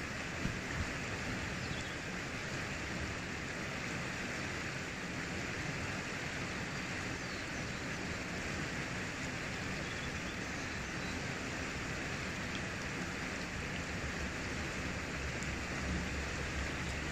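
Steady rushing of a river flowing over stones, an even hiss that does not change. Two light knocks come about half a second in.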